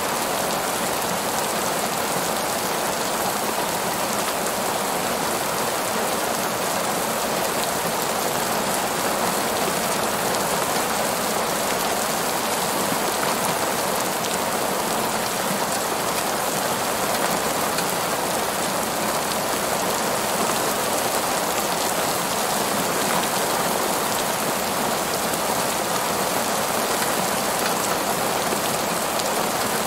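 Heavy rain falling steadily on a paved parking lot, a dense, even rush of drops with no breaks or changes.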